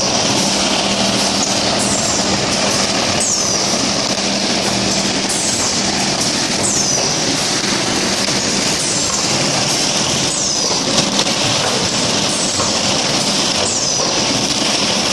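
PS foam vacuum forming machine line running: a steady mechanical noise with a low hum, and a short high squeak that falls in pitch about every two seconds.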